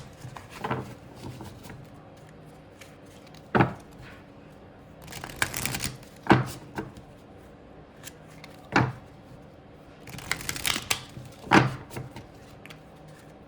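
A deck of oracle cards being shuffled by hand in two bouts of rustling, with several sharp knocks in between.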